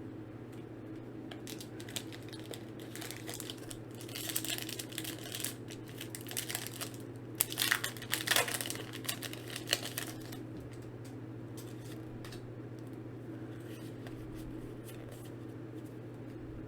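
Foil trading-card booster pack being torn open and its wrapper crinkled, in rustling, crackling bursts from about four to ten seconds in, over a steady low hum.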